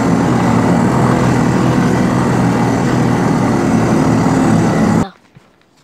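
1986 Honda Big Red three-wheeler's single-cylinder four-stroke engine running at a steady speed while it drives its snow track along a trail, with loud, even engine noise that cuts off suddenly about five seconds in.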